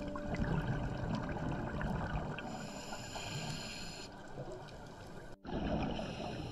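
Underwater ambient sound picked up by a dive camera: a steady rushing hiss with faint scattered crackles, breaking off for a moment about five seconds in.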